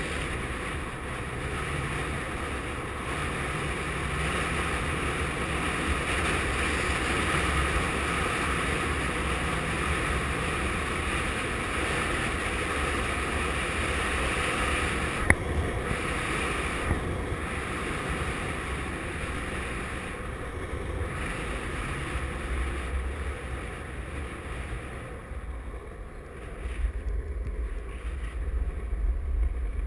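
Wind rushing and buffeting over the microphone into a strong headwind, over the steady roll of longboard wheels on asphalt, with one sharp click about halfway through. The low buffeting grows gustier near the end.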